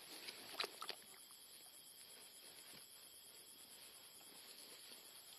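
Faint splashing and sloshing of a gloved hand groping in shallow muddy water among grass for a speared fish. There are a few small sharp splashes about half a second to a second in, then only a faint hiss.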